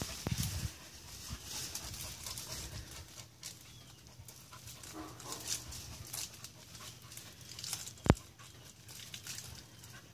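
A dog shaking and tugging at the branches of a small tree in thick brush: leaves and branches rustle in short bursts, with a single sharp crack about eight seconds in.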